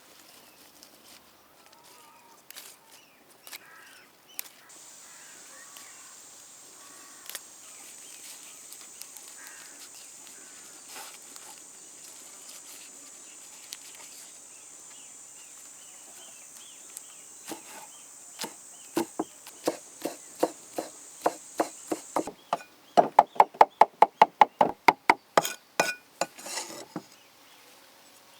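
Knife chopping on a cutting board: scattered single cuts that quicken into a fast, even run of about six chops a second a little past two-thirds of the way in. A steady high insect buzz runs underneath for most of the first part and stops about three-quarters of the way through.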